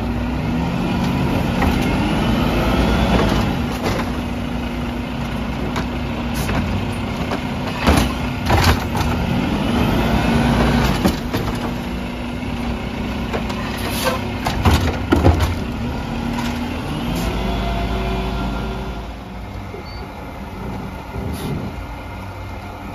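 Volvo-cab automated side-loader garbage truck at work: the engine hum rises and falls with a hydraulic whine as the arm lifts a trash cart and tips it into the hopper, with several loud bangs of the cart being shaken out and set back down. Near the end the engine rumbles heavily as the truck pulls forward, then eases off.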